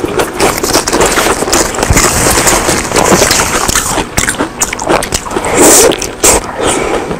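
Close-miked mukbang eating sounds: fingers handling and wrapping food, then a loud bite and wet, crackly chewing a little past two-thirds of the way through.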